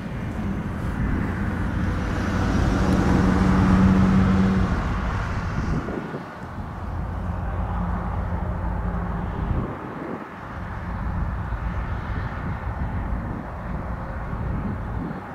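Diesel locomotive engine running out of view, a steady low rumbling drone with a hum that is loudest about three to four seconds in and dips briefly twice.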